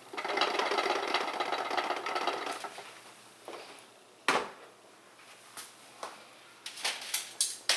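Electric pressure cooker lid being opened: a rattling rush of noise for about three seconds that fades away, then a sharp knock a little after four seconds and a few lighter clicks.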